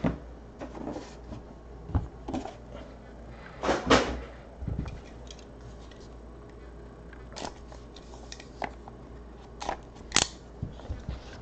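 A sealed cardboard box of trading cards being handled and opened: scattered knocks, scrapes and rustles of cardboard, with a blade slitting the tape seal, the louder knocks about two, four and ten seconds in.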